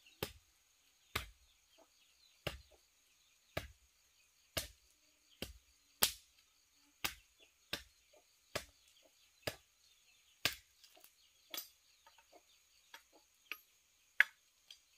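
A hand tool chopping with steady strikes, about one a second, each a sharp crack with a dull thud under it; the strikes grow weaker and sparser over the last few seconds.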